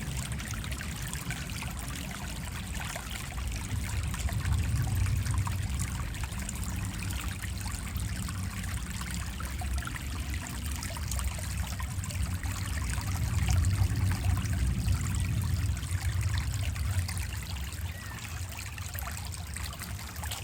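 A small stream trickling and burbling steadily, with a low rumble underneath that swells and fades.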